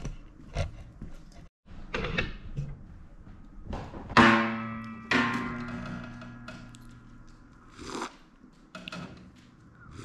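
Short piece of music: a few light knocks and taps, then a chord struck about four seconds in that rings out and slowly fades, followed by a few more short hits.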